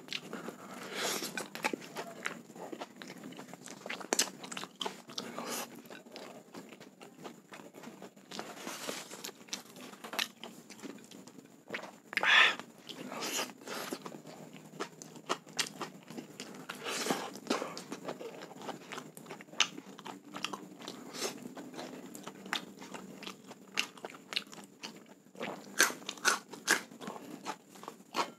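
Close-miked eating sounds: biting into and chewing a soy-sauce-glazed chicken thigh with rice, with irregular crunches. The loudest crunch comes about twelve seconds in.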